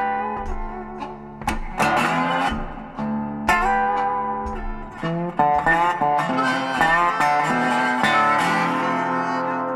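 Outro music played on a plucked guitar, individual notes picked one after another, with the last notes left ringing near the end.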